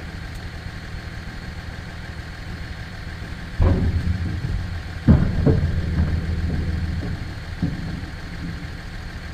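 Pickup truck engine idling steadily as it jump-starts a cold diesel machine. About a third of the way in, the machine's engine is cranked on its starter in two loud spells that start suddenly, last about four seconds in all, and die away without catching. Hard cold-weather starting on a weak battery.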